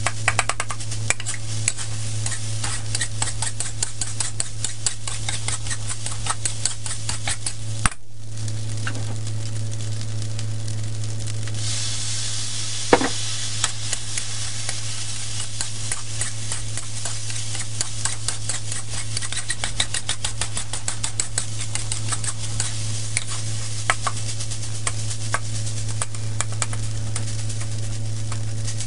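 A metal spatula scraping and tapping rapidly against a steel wok as rice is stir-fried, over a steady sizzle and a low hum. The sizzle turns louder and hissier about twelve seconds in, followed by a single loud clang.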